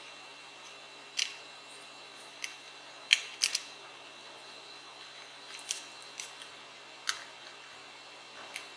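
About nine sharp plastic clicks and taps at irregular intervals, made as fingers press and fit parts on the speaker's circuit board and plastic housing. They sound over a faint steady hiss.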